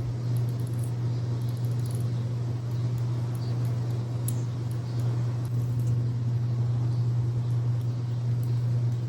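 A steady low hum with faint scattered clicks and light rustles over it.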